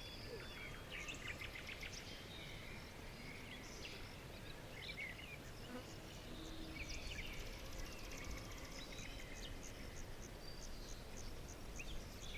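Several birds chirping and calling in a natural ambience, with a fast high trill running through the middle, over a steady low background rumble.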